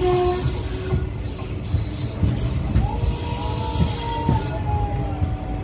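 A moving passenger train coach's wheels running on rails, heard from an open coach doorway: a steady low rumble. A thin metallic squeal starts about three seconds in and drops slightly in pitch near the end.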